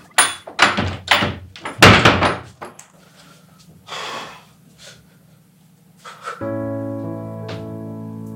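A fist pounding on a wooden door: about six heavy bangs in the first two seconds. From about six seconds in, background music enters with low held chords.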